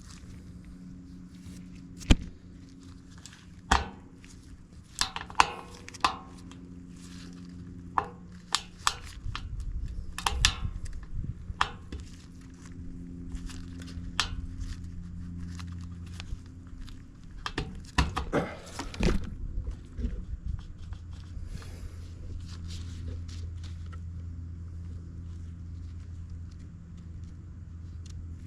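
Scattered sharp plastic clicks and snaps as a tabbed dash switch is pried out of its snug cutout in the mower's control panel, over a steady low hum.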